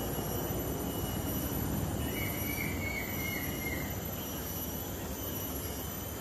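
Steady low rumbling background noise, with a faint high wavering tone for about two seconds in the middle.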